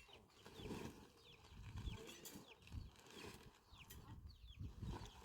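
Faint, rapid peeping of birds: a string of short, high chirps that each fall in pitch, with soft low rustling underneath.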